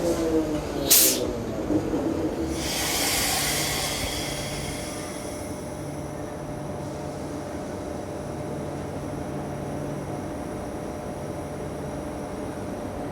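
Monorail train arriving. A descending whine as it slows to a stop, with a sharp clack about a second in. Then a burst of air hiss, and a steady hum as the train stands.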